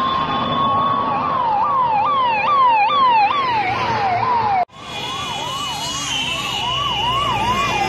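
Ambulance siren going by: a steady wail that breaks into fast rising-and-falling yelps about twice a second. The sound cuts off abruptly near the middle and the yelping siren picks up again straight away.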